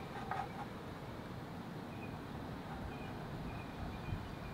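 Outdoor ambience: a steady hum of distant traffic, with a few faint short bird chirps.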